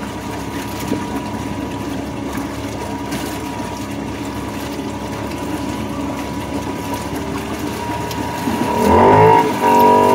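Engine of a Honda side-by-side UTV running steadily as it wades through deep water. Near the end the engine revs up sharply and loudly, rising in pitch and then holding high for a moment.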